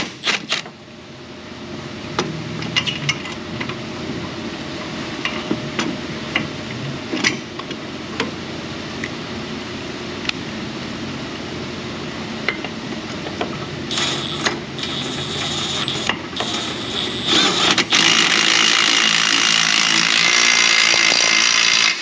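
Socket wrench work on a front-suspension nut: scattered sharp metal clicks over steady noise, which gets much louder for the last four seconds or so.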